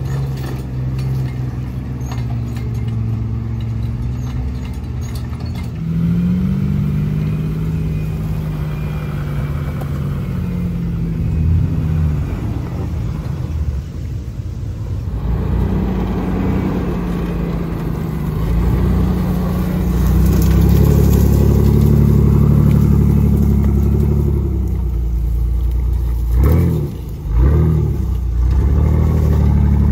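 4x4 truck engines working and revving as the trucks climb a steep, rocky hill trail one after another. The pitch rises and falls with the throttle, louder in the second half, with a few quick sharp revs near the end.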